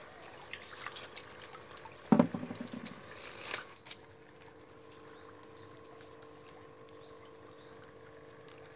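Water splashing and sloshing as an aluminium bowl of baby livebearer fish is handled at the tank, with a hollow knock about two seconds in and a sharp clatter about a second later. After that it is quieter, with a steady faint hum and a few short bird chirps.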